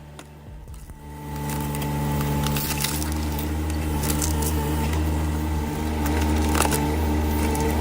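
An engine-driven firewood machine comes up to a steady running hum about a second in, with wood cracking and splintering over it now and then.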